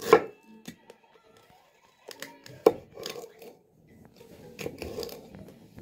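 Large kitchen knife chopping red cabbage on a wooden cutting board. A few sharp knocks of the blade striking the board, the loudest at the start and about two and a half seconds in, with the crunch of cut leaves between them.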